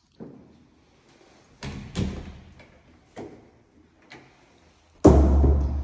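Doors of a built-in wooden wardrobe being opened and shut: a few separate clicks and knocks, then a sudden loud thump about five seconds in.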